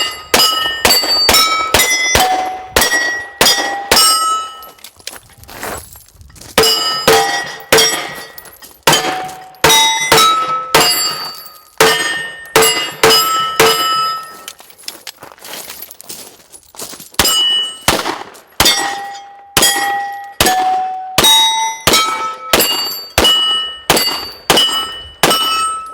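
Rapid strings of Glock 34 9mm pistol shots, each followed by the ring of a steel target being hit, the plates ringing at different pitches. There are dozens of shots with short pauses between strings.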